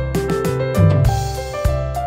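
Instrumental background music: held keyboard notes over a steady beat.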